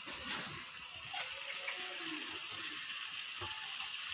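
Onion-tomato masala, wet with tamarind water, sizzling steadily in a non-stick frying pan, with a few faint scrapes of a wooden spatula.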